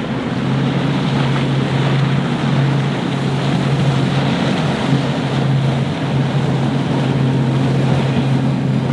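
Motorboat engine running steadily as the boat crosses rough inlet waves, with surf and wind noise on the microphone.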